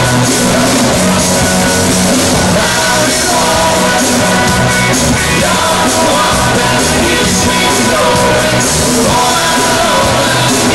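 Live rock band playing: drum kit, congas, electric and acoustic guitars and keyboard, with singing, loud and steady.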